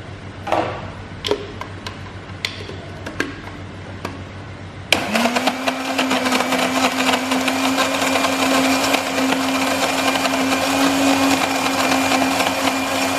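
A few clicks and knocks as the lid goes onto a countertop electric blender. About five seconds in, the blender motor starts, its hum rising quickly to a steady pitch, and runs steadily while blending tamarind pulp with water.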